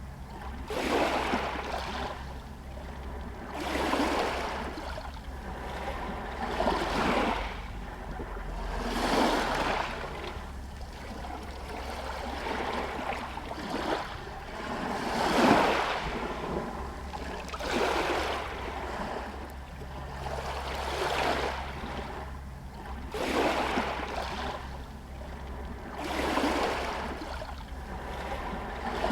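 Small sea waves lapping against shore stones, one soft wash about every three seconds, the loudest near the middle.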